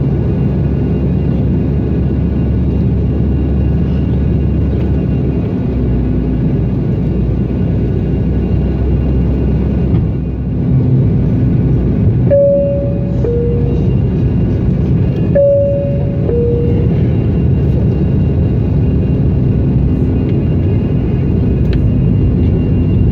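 Steady engine and airflow rumble inside an airliner cabin. A two-tone cabin chime, a high note falling to a lower one, sounds twice, about halfway through and again some three seconds later.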